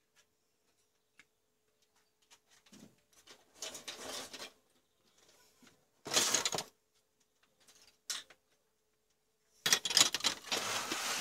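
Spiral CFL bulbs' glass tubes and plastic bases clattering and rustling against each other in a cardboard box as they are handled, in irregular bursts, the loudest about halfway through and near the end. A faint steady hum runs underneath.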